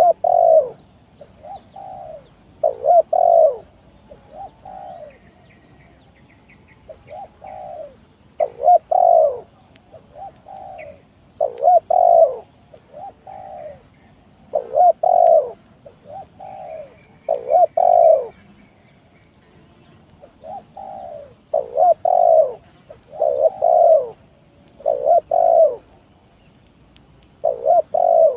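Spotted dove (tekukur) cooing vigorously: phrases of two to four low coos, repeated every few seconds. It is the kind of call played as a lure to set other tekukur calling.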